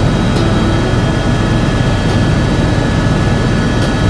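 Bell 407 helicopter in cruise flight, heard inside the cabin: a steady, loud drone of rotor and turbine with a thin, constant high whine over it.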